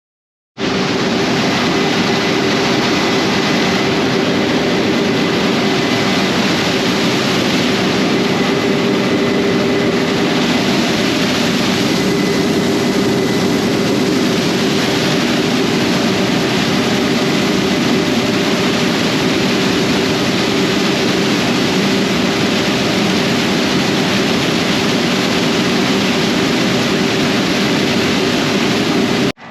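Combine harvester running steadily under load during a corn harvesting pass, heard up close: a loud, even machine drone with a constant hum and a faint high whine. It cuts in suddenly and cuts off suddenly.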